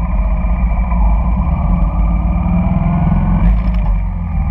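Honda Shadow cruiser's V-twin engine running steadily as the motorcycle rides along a city street, heard from a camera mounted on the bike.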